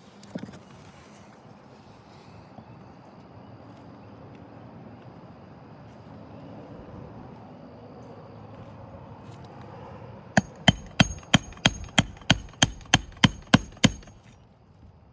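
Hammer blows, about a dozen quick, evenly spaced strikes starting about ten seconds in, with a high ringing note over them. Before them, one single knock near the start.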